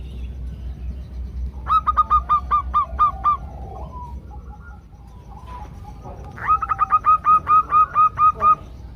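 Female zebra doves (perkutut) calling: two quick runs of about a dozen short, bright repeated notes each, the first about two seconds in and the second near the end, with softer calls between.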